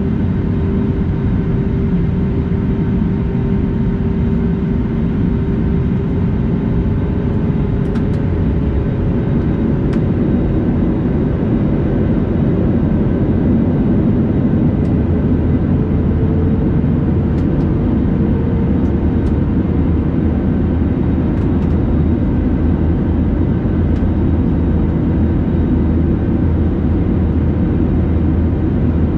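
Airbus A320neo in flight on approach: a steady, loud rumble of engines and airflow with faint steady tones. One tone dips slightly in pitch early on, and another rises gently in the middle as the engine thrust changes.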